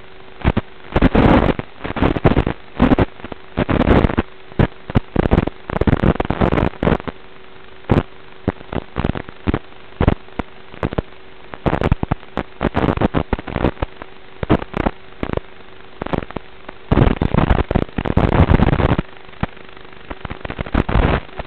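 Crackling static on the audio channel of an analog FPV video link: irregular loud bursts of noise, from brief pops to second-long rushes, over a steady low hiss and a faint constant hum. No clear motor whine.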